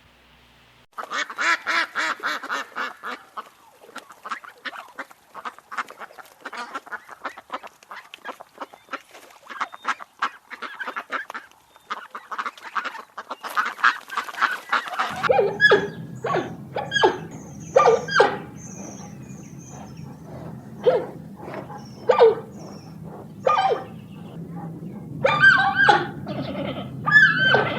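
Animal calls: a fast, dense run of chattering calls for about fourteen seconds, then separate, louder short calls over a steady low hum.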